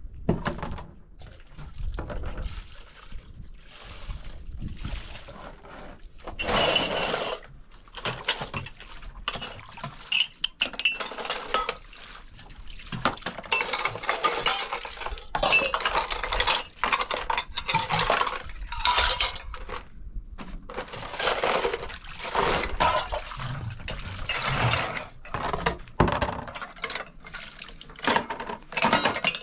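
Water splashing with irregular clinks and knocks, like dishes or metal pots being handled in water.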